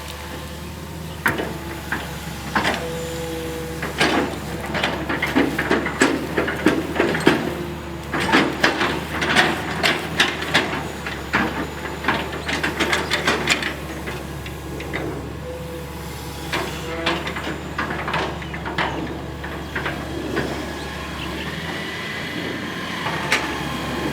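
Hitachi EX220-1 long-reach excavator's diesel engine running steadily while the machine works, with a busy run of clanks and knocks from about a second in that is thickest in the middle and thins out near the end.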